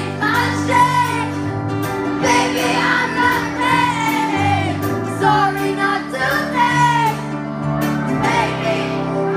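Live pop song: a young girl's voice singing with vibrato over held keyboard notes, ukulele and drums.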